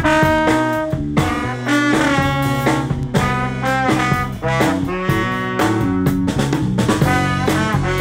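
Trombone playing a jazz melody, sliding between some notes, over an electric bass line, with light ticks of percussion throughout.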